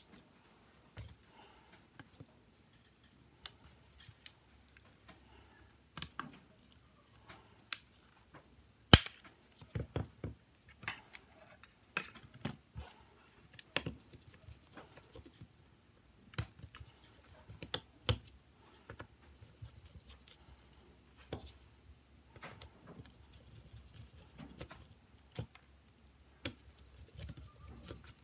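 Irregular small clicks, snaps and scrapes of the plastic and metal parts of a Nokia C2-01 phone being pried apart and handled, with a small tool working at the keypad; one sharper snap about nine seconds in.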